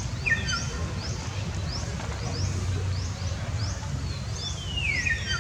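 Small birds calling: a short rising chirp repeated about twice a second, a falling call near the start and a longer falling whistle near the end, over a steady low rumble.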